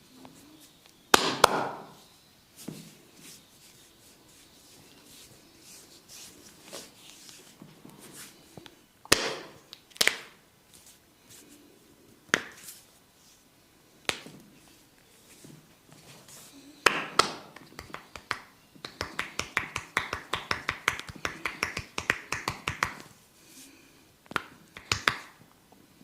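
Barber's hands slapping and tapping on a person's head and body during a head massage: single sharp slaps a few seconds apart, then a fast, even run of taps, about nine a second, for some four seconds.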